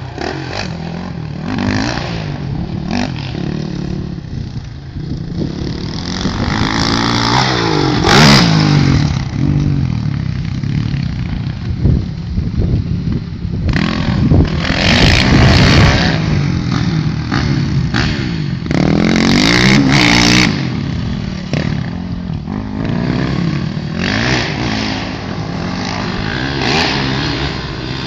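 Motocross dirt bike engines revving up and down as riders lap the track, the pitch rising and falling with each throttle change, and growing louder several times as bikes come close.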